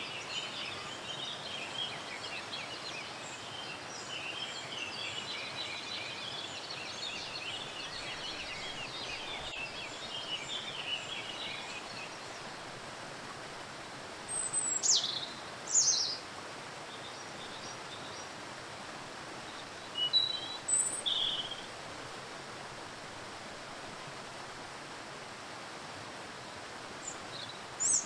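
Steady rush of falling water with songbirds: a dense, high twittering chorus for the first twelve seconds or so, then a few louder separate calls, among them two sharp downward-sweeping whistles around the middle and more calls near the end.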